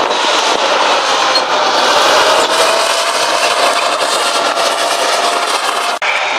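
Soviet T-55 tank driving past, its V12 diesel engine running loud with the steel tracks clattering. The sound drops out for an instant about six seconds in.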